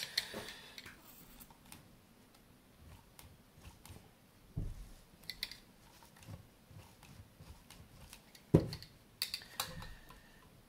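Scattered clicks and light knocks as hands handle and pry at the metal chassis of a partly dismantled avionics display unit, with a dull thump about four and a half seconds in and a sharper knock about eight and a half seconds in.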